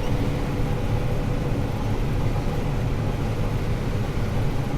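Combine harvester running steadily: an even low drone with a steady hum above it.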